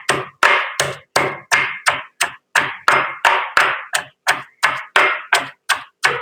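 Hand-held kitchen crushing stone pounding shallots with black pepper and nigella seeds, crushing them together to draw out the shallot juice. Steady, even strikes, about three a second, each a short knock.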